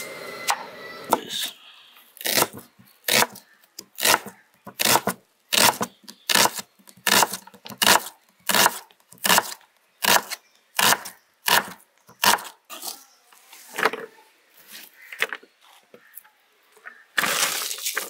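Kitchen knife slicing a whole onion on a wooden cutting board: a steady run of crisp strokes through the onion onto the board, about one and a half a second, thinning out in the last few seconds. Near the end comes a short rustling burst as the onion slices are handled in a plastic tray.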